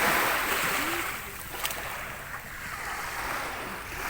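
Sea waves washing in: a surge of hissing surf loudest in the first second, then slowly ebbing.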